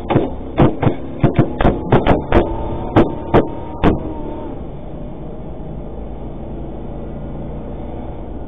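Rapid gunfire, about a dozen sharp shots in four seconds, heard from inside the cab of an armoured cash-in-transit vehicle as rounds strike it. Underneath, the vehicle's engine runs steadily. The shooting stops about four seconds in.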